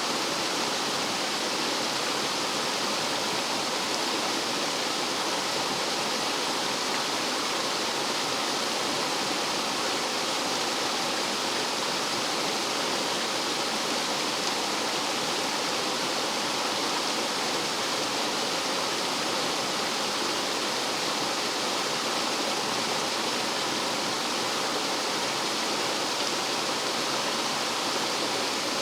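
Rough mountain stream water rushing and falling over rocks like a small waterfall, a steady, unbroken rush.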